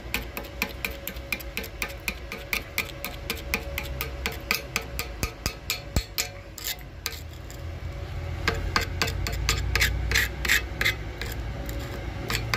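Flathead screwdriver chipping and scraping slag off a fresh 6013 stick-weld bead on steel plate: quick metal-on-metal ticks at about three to four a second, becoming louder, denser scraping about two-thirds of the way in.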